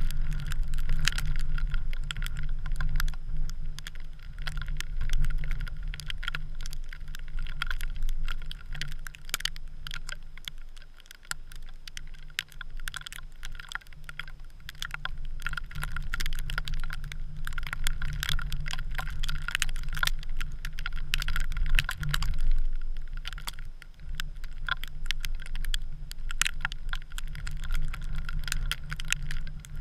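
Storm wind gusting on the microphone, a rumble that swells and eases with brief lulls, over a constant patter of small ticks.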